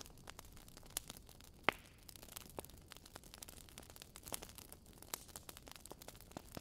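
Faint campfire crackling: scattered, irregular pops and snaps over a low hiss.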